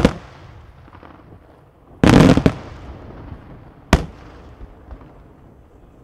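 Daytime aerial fireworks shells bursting with loud bangs: one at the start, a rapid cluster of reports about two seconds in, and another sharp bang about four seconds in, each trailing off in an echoing rumble.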